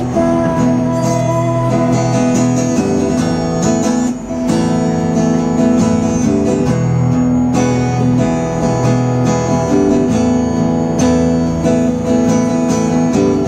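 Acoustic guitar strummed in steady chords, an instrumental passage with no singing, with a brief drop in level about four seconds in.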